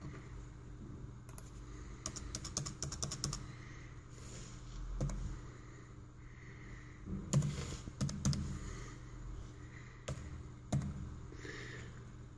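Computer keyboard keys being typed, in scattered keystrokes with a quick run of several about two seconds in, over a low steady hum.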